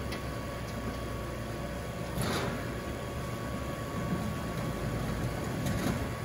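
Steady machine hum from an automatic liquid-filling station filling plastic jugs. About two seconds in there is a brief rush of noise, and a few light knocks come near the end.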